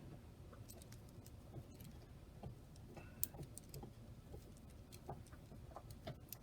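Faint, irregular clicks of a miniature Rubik's cube's layers being turned slowly by hand.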